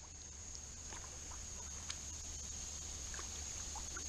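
Quiet canoe paddling on calm water: faint paddle dips, drips and a few light clicks, over a steady high-pitched drone of insects.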